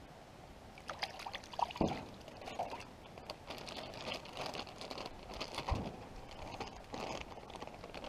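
Clear plastic bag crinkling and rustling in irregular clicks while fish fillets are put into it, with two dull knocks, one about two seconds in and one near six seconds.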